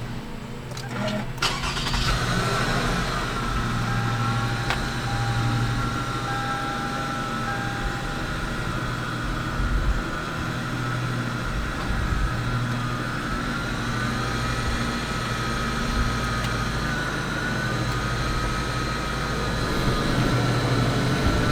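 Car engine running, heard from inside the cabin: a steady low hum with a faint wavering whine above it, which steps up in loudness about two seconds in and then holds steady.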